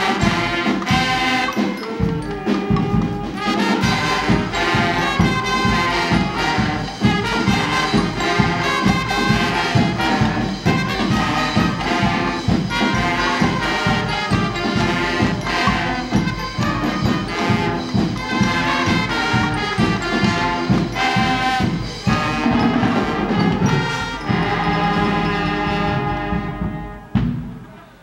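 Guggenmusik carnival band playing loudly: trumpets, trombones, sousaphone and saxophones over a steady drumbeat, ending on a long held chord that cuts off about a second before the end.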